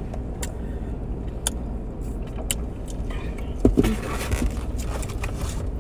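Steady low hum of a car's engine idling, heard inside the cabin, with scattered small clicks and crinkles from food and containers being handled while eating. A short murmur of a voice comes about three and a half seconds in.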